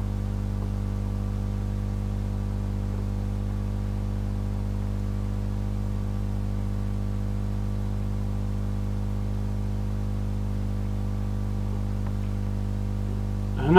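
Steady electrical hum with a buzzy overtone series: the recording's constant background noise, unchanging throughout.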